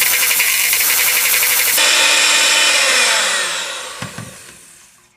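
Electric mixer beating softened butter and vanilla extract at medium-low speed: a steady motor whine that is switched off about three seconds in and winds down with a falling pitch.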